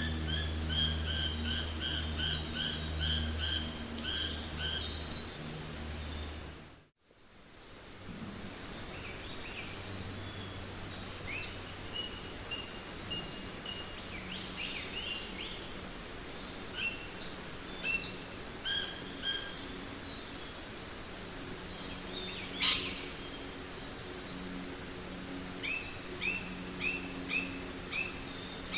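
Jungle ambience of many birds chirping and calling over a steady background hiss, with a low steady hum under the first few seconds. About seven seconds in the sound fades out briefly and comes back with a different chorus of calls. It includes one sharp snap a little past the middle and a quick run of repeated chirps near the end.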